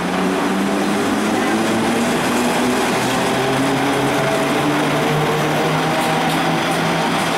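FS E656 electric locomotive passing close by at low speed, its motors giving a loud, steady hum with several tones that sink slightly in pitch as it goes by, and a few light clicks from the wheels on the rails near the end.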